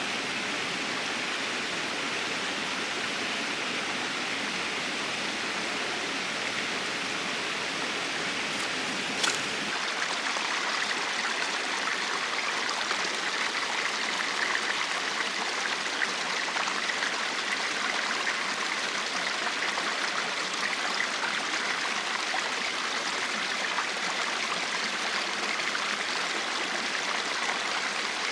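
Mountain stream flowing steadily, a continuous rush of running water, with a brief click about nine seconds in.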